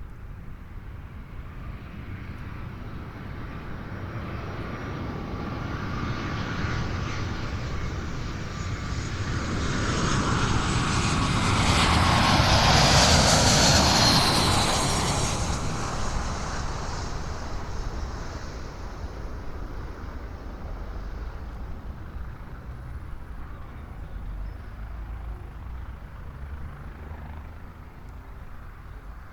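An airliner coming in to land, passing low overhead: its engine noise builds for about ten seconds, peaks with a whine that drops in pitch as it goes by, then fades away.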